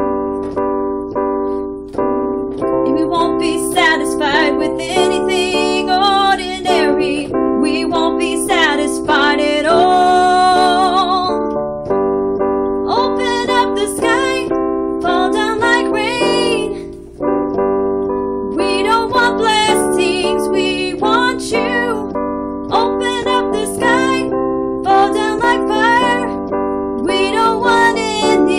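A woman singing a worship song with vibrato over sustained keyboard chords, with a brief pause between phrases partway through.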